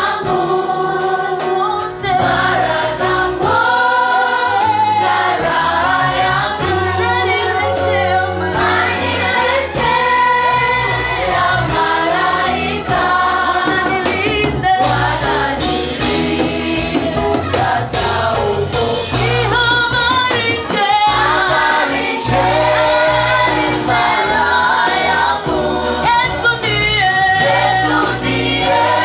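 Church choir singing a Swahili gospel song, with instrumental backing: a steady bass line and drums under the voices.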